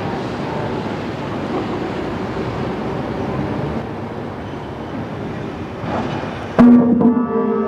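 Linde H160 diesel forklift running in a steel yard, then about six and a half seconds in a single loud metallic clang of steel bars striking each other, ringing on in several clear tones.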